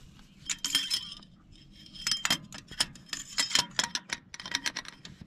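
A series of light metallic clinks and rattles, irregular and sharp, some ringing briefly, beginning about half a second in and coming thickest in the second half.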